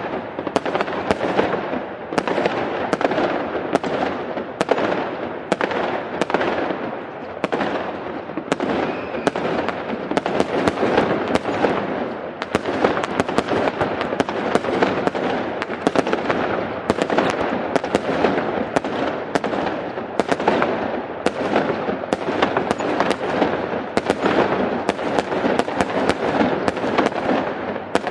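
Fireworks going off without pause: many sharp bangs, a few each second, over a continuous dense crackle.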